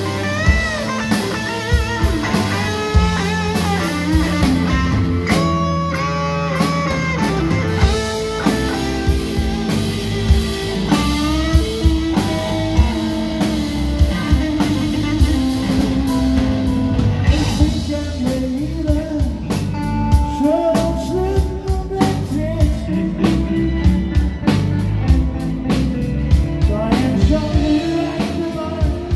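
Live blues-rock band playing: electric guitar lead with bent notes over bass guitar and drum kit, and later a man singing over the band.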